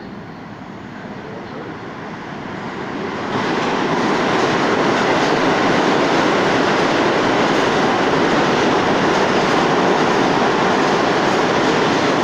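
New York City subway train running past on the station's far tracks, steel wheels on rail. It grows louder over the first three and a half seconds, then holds at a loud, steady level.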